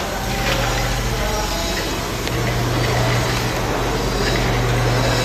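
Tablet and capsule bottle packing line running: the conveyor and wheel-type capping machine give a steady low motor hum under even mechanical noise, with a few faint clicks.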